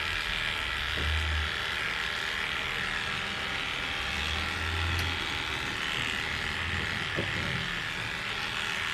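Electric pet grooming clipper running steadily as it shaves through a puppy's matted coat.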